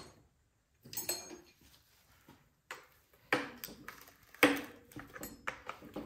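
Metal clicks and scrapes of a socket wrench working the bar nuts on a chainsaw's side cover, tightening them down in several short bouts.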